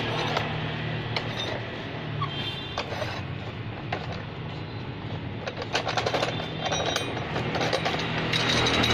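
Metal spring compressors being loosened and taken off a strut's coil spring: irregular clicks, knocks and short metallic clinks as the threaded rods are turned with a steel bar and the hooks shift against the coils.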